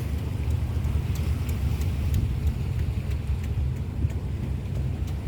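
Steady low rumble of wind buffeting the microphone, mixed with the wash of large waves from a passing ship's wake against the shore, with faint scattered ticks.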